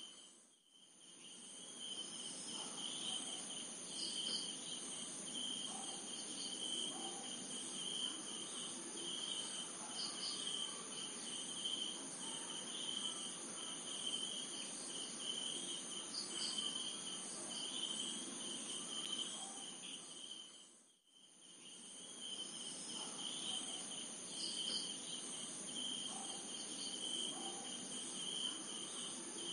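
A night insect chorus: steady, pulsing high-pitched chirring in several layers. It fades out and back in briefly twice, once just after the start and once about two-thirds of the way through.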